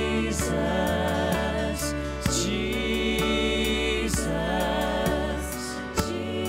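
Live worship band and singers performing a slow praise chorus: voices sustain "Jesus" over acoustic guitar, electric bass, keyboard and a Roland electronic drum kit, with a cymbal hit about every two seconds.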